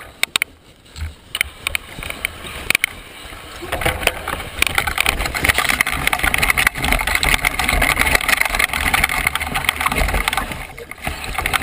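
Mountain bike descending a rocky dirt trail: tyres rolling over dirt and stones, with frequent knocks and rattles from the bike. A denser, steady rolling noise builds about four seconds in and eases near the end.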